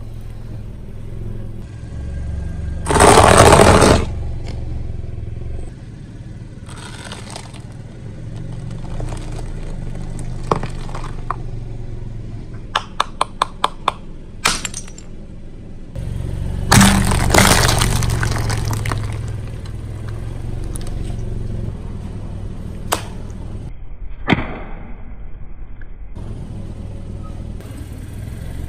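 Objects being crushed and smashed on concrete by a car tyre and a hammer. There is a loud crunch about three seconds in, a quick run of about six sharp hammer taps around thirteen seconds, and a second loud breaking crash around seventeen seconds.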